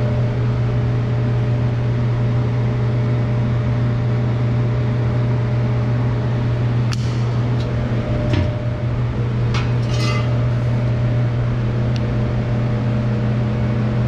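Loud, steady machine hum with a deep drone, and a few light metallic clinks and knocks, mostly past the middle, as steel exhaust pipes are handled.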